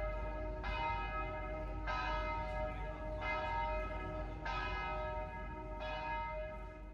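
Church bell tolling, struck about every second and a quarter, each stroke ringing on into the next, five strokes in all.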